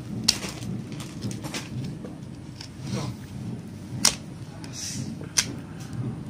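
A small cutter knife picking and cutting at a cloth-wrapped amulet bundle tied with string, with cloth and string being handled and three sharp clicks spread through, over a low background murmur.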